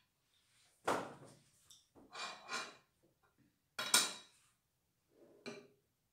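A metal serving utensil scraping and clinking against a frying pan and a plate, in about five short separate clatters with quiet between them.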